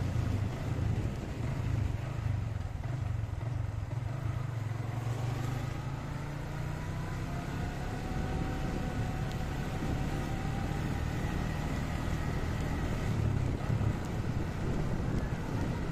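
Motorcycle engine running steadily while ridden on a wet road, with wind and tyre noise; a faint whine rises slowly in pitch through the middle.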